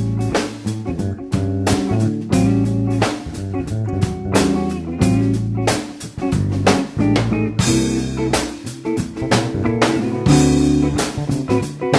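Background music: an instrumental-band track with a steady drum beat over sustained bass notes.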